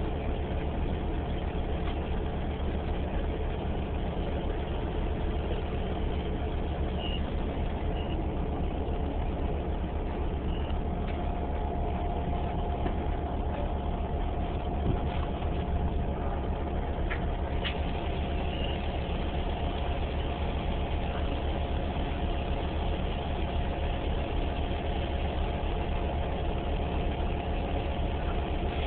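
Interior cabin noise of a New Flyer Xcelsior XDE40 diesel-electric hybrid transit bus: a steady engine drone with a faint steady whine over it, and a single brief knock about halfway through.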